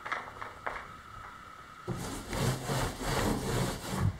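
Paint roller rolled back and forth over the kayak's deck, spreading wet enamel paint: a rough rubbing sound that starts about two seconds in.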